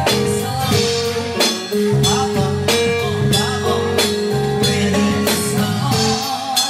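A band playing an instrumental passage over a drum-kit beat, with held bass and chord notes and a faint voice in the middle.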